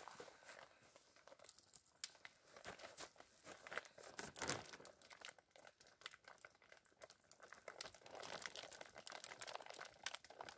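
Heavy black plastic drum liner crinkling and rustling as a person lowers his weight onto it where it is stretched between wooden poles as a camp bed, with the loudest rustle about four and a half seconds in.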